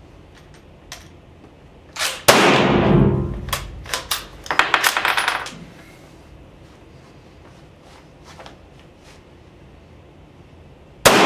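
A Spanish Mauser FR8 bolt-action rifle in 7.62×51 mm fires a reduced load of Trail Boss powder behind colour-coated cast lead bullets. The single shot about two seconds in rings on in the room. It is followed by a run of metallic clicks and clatter as the bolt is worked and the brass case is ejected, and a second shot goes off right at the end.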